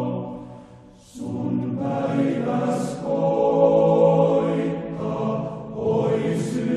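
Music with a choir singing long held chords. It fades away during the first second, then comes back suddenly and stays strong.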